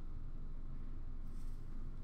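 Quiet room tone with a steady low hum, and a faint brief rustle about a second and a half in.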